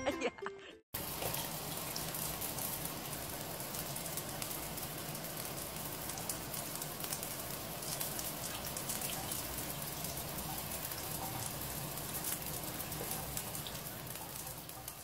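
Shower water pouring steadily onto a dog and splashing into a bathtub, a continuous spattering hiss that starts about a second in.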